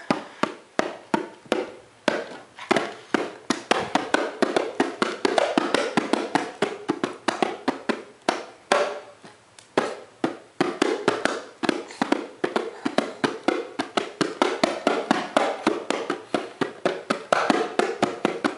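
A pair of bongo drums slapped by a toddler's bare hands in an uneven rhythm, a few hits a second at first and coming faster and denser in the second half.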